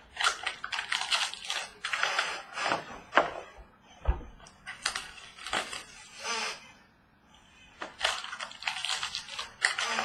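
Trading-card packaging and cards being handled: crinkling, rustling and crackling with sharp clicks, in bursts with short pauses, and one low thump about four seconds in.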